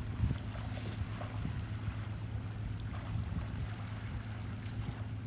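Boat motor idling with a steady low hum.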